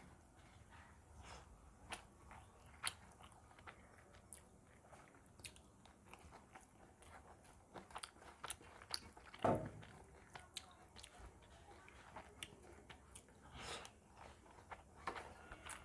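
Close-miked eating sounds: quiet, scattered wet clicks and smacks of chewing rice and fish curry, with fingers mixing rice on a metal plate. One louder, duller smack about halfway through.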